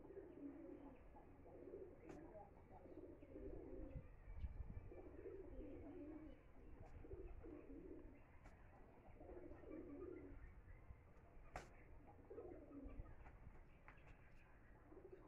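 Faint, low cooing of a pigeon-type bird, repeated in short phrases every second or two, over a low rumble.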